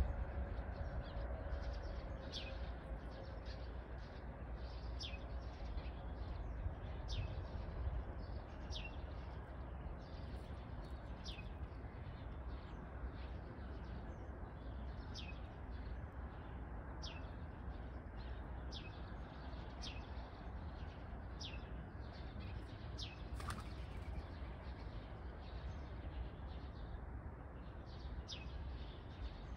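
A small bird calling over and over, each call a short high chirp that slides down in pitch, one every second or two, over a steady low rumble.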